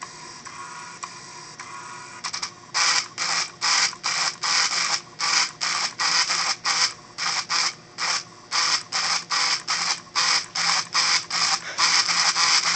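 A 3D-printed pen plotter drawing, its plastic gear-and-rack axes driven by small electric motors. It starts with a steady motor hum, then about two and a half seconds in it moves to quick, evenly repeated short strokes of buzzing and scratching, two to three a second.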